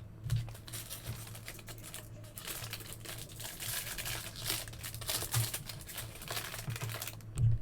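Foil wrapper of a trading card pack being torn open and crinkled by hand, a rustling that thickens from about two seconds in and eases off near the end.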